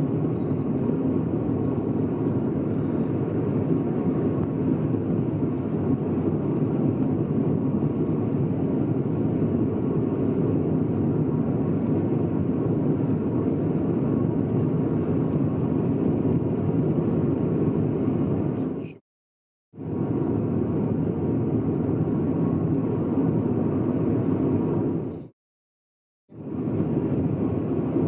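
Steady road and engine noise inside a moving car's cabin. The sound cuts out completely twice, for about a second each time: once about two-thirds of the way through and again near the end.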